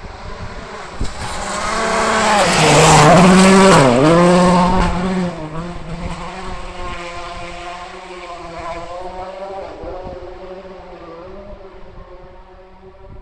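Rally car at full throttle on a gravel stage, coming up and passing close. Its engine note dips sharply twice as it goes by, over a spray of gravel and tyre noise. It then fades away as the car accelerates off, the note rising and falling through the gear changes.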